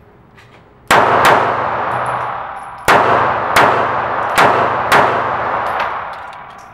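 Six shots from a Taurus PT738 TCP .380 ACP pocket pistol, starting about a second in: a quick pair, a pause, then four more at a steady pace. Each shot rings on in a long echo off the walls of the indoor range.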